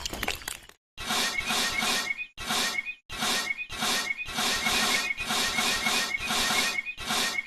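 Rhythmic scraping or rubbing, in several short segments that cut off abruptly about a second in, around two and a half and three seconds in, and near the end.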